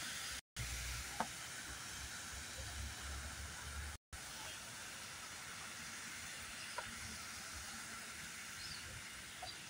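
Light rain falling, a steady high hiss with a couple of faint taps. The sound cuts out for an instant twice.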